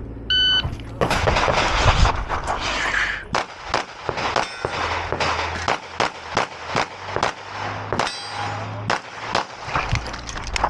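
A competition shot timer beeps once, a short steady tone, and a long string of rapid handgun shots follows from about a second in, going on for the rest of the course of fire.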